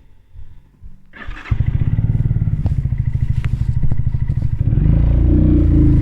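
Keeway K-Light 125 motorcycle's small air-cooled V-twin starting up about a second in and settling into a fast, even idle. Near the end the engine gets louder as the revs rise.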